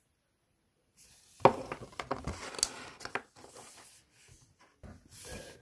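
Handling noise from a card and its wooden stand: after a second of silence, a few sharp knocks and clicks with rustling, then fainter rustles.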